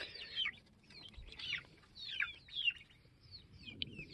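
Several chickens giving short, high peeping calls that slide downward in pitch, a couple a second, as the flock gathers at the coop to roost for the night.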